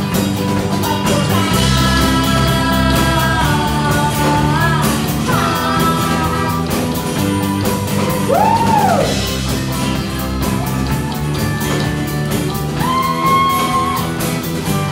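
Live rock band playing: a boy's voice singing through a microphone over electric guitar, bass guitar, drums and acoustic guitar, with a regular drum beat.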